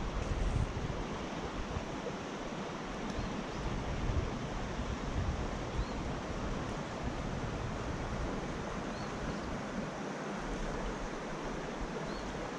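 Steady rushing hiss of a shallow trout creek running over riffles, with wind rumbling on the microphone that eases near the end.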